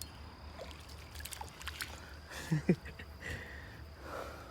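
Scattered small splashes and clicks over faintly running creek water as a hooked fish is played and landed on light tackle. There is a brief vocal sound about two and a half seconds in.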